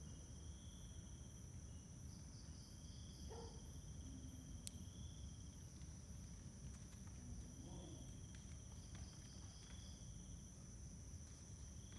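Faint night insects, crickets by their sound: a steady high-pitched trill with softer chirps coming and going every second or two.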